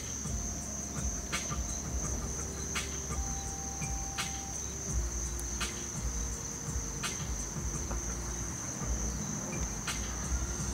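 Insects singing a steady, high-pitched trill, with a sharp tick repeating about every second and a half over a low rumble.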